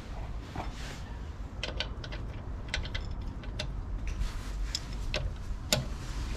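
Scattered short metal clicks and clinks of a socket and breaker bar being handled and fitted onto a car wheel's lug nuts, over a low steady background rumble.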